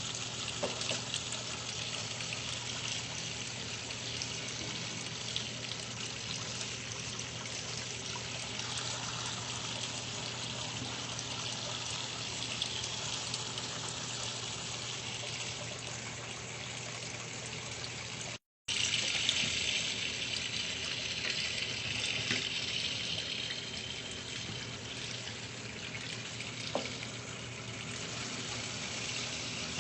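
Water running and splashing inside a top-load washing machine, over a steady low hum. It cuts out for a moment about two-thirds of the way through, then carries on.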